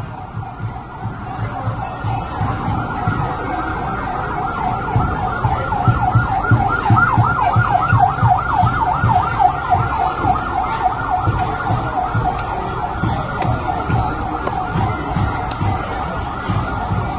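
Emergency-vehicle siren in a rapid yelp, its pitch sweeping up and down several times a second. It grows louder about five seconds in and then holds steady.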